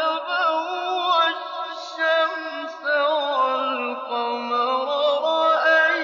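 A male reciter chanting the Quran in the ornate mujawwad style, holding a long wavering melismatic line over several seconds, with a short break for breath about halfway through.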